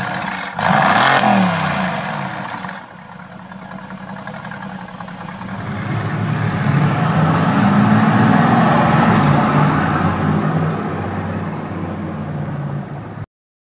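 A high-performance car engine revving: a sharp blip about half a second in whose pitch falls away, then a long build as the car accelerates, loudest around the middle, before the sound cuts off suddenly near the end.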